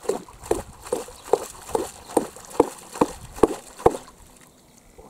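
Steady hammer blows, about two and a half a second, driving a stake in at the water's surface, each stroke with a splash; about ten strikes, stopping about four seconds in.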